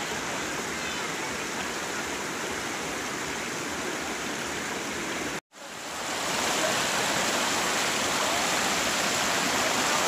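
Shallow rocky stream rushing over boulders and small rapids, a steady rush of water. It cuts out for a moment about halfway through and comes back a little louder.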